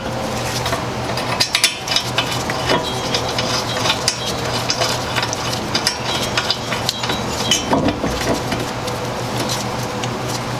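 Light metallic clinks and taps, irregular throughout, as a steel brake caliper bracket is worked into place over the rotor onto the hub. A steady low hum runs underneath.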